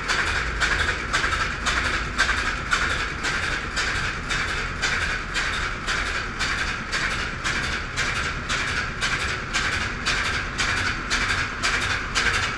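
Atlas-Imperial marine diesel engine running in a tugboat's engine room: a steady, even beat of about three knocks a second over a low running rumble.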